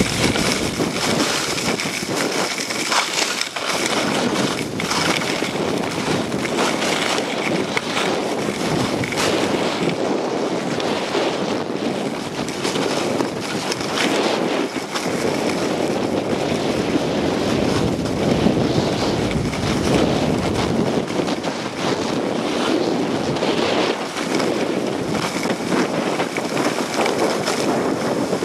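Snowblades sliding and scraping over packed snow on a downhill run, with wind rushing over the microphone: a steady, loud rushing hiss with uneven scrapes through it.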